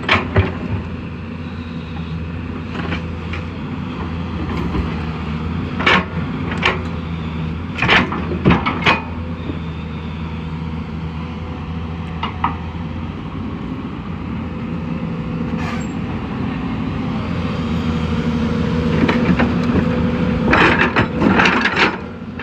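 Excavator's diesel engine running steadily, its note shifting slightly higher about halfway through. Scattered sharp clanks come over it, with a cluster near the end.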